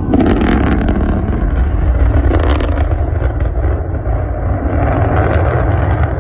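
Rocket roar: a loud, steady rumble that starts abruptly, with crackling about half a second in and again around two and a half seconds in.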